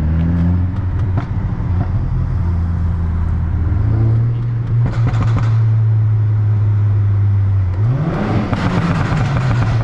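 Volkswagen Golf R's turbocharged four-cylinder engine and aftermarket turbo-back exhaust, heard with the window down while driving. The engine note holds steady, then about eight seconds in it is revved hard: the pitch climbs sharply and falls back, with a rush of exhaust noise at the top.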